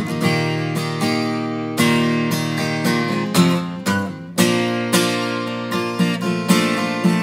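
Bourgeois Touchstone Country Boy steel-string acoustic guitar played solo: chords strummed and left to ring, with a short lull just before a hard strum about four seconds in.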